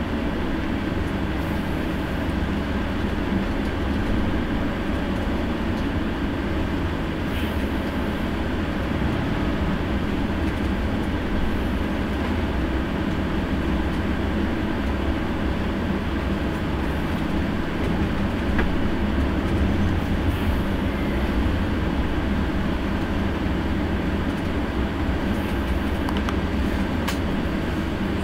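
Coach bus engine and road noise heard from inside the cabin, a steady low rumble.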